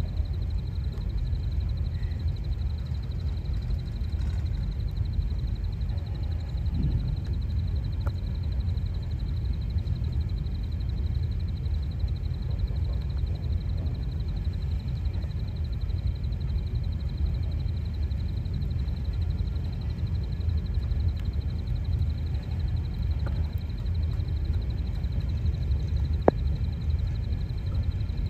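Empty grain hopper wagons rolling past on the track with a steady low rumble. A thin, steady high tone sounds alongside, and there is one sharp click near the end.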